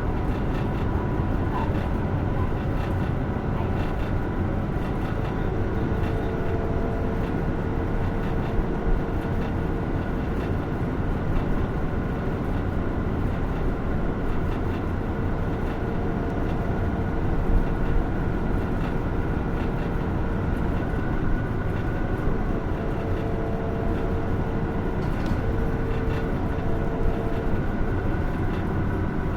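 Hino Rainbow II city bus heard from inside the cabin while driving: steady engine and road rumble with a faint, even whine over it. A couple of light knocks come through, about nine seconds in and again near eighteen seconds.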